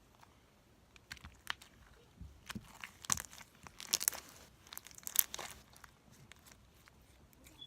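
Slime being squished and stretched by hand, giving a run of irregular crackling clicks and pops that are thickest in the middle.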